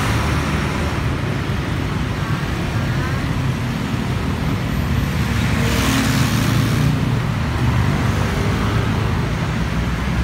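Heavy city road traffic: a steady low rumble of engines and tyres, with a city bus passing close at the start. A brief hiss rises about six seconds in.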